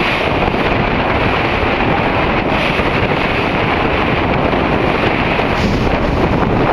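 Steady rush of a tour caique under way at sea: its engine running, buried under wind buffeting the microphone and the wash of water.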